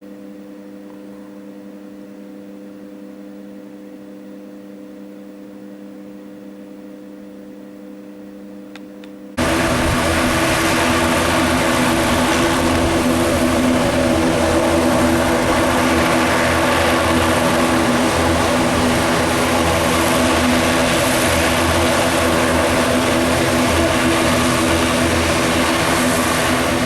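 Twin turboprop engines of an ATR 72 running while it holds for takeoff: a steady hum at first, then, about nine seconds in, the sound abruptly becomes much louder and fuller and stays that way.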